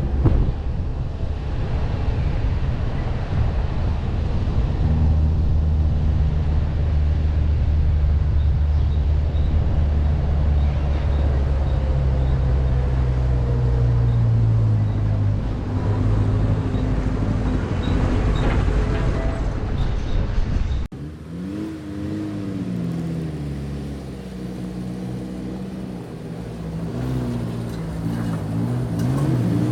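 Car engine running under way, its pitch holding steady and then stepping as the revs change; after an abrupt break about two-thirds through, an engine's revs rise and fall repeatedly.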